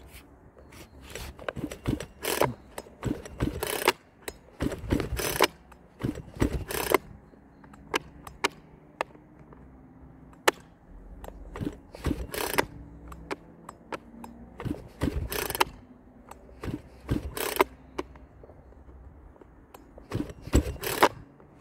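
Irregular clicks, scrapes and rattles from hands working on a Lider 4114 chainsaw's plastic housing and recoil starter. The sounds come as short separate knocks and scrapes, a few stretching to about half a second, with gaps between them.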